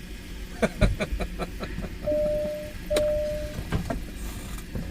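A quick run of sharp clicks, then two steady beeps of about half a second each, then a couple of knocks, over a low background rumble.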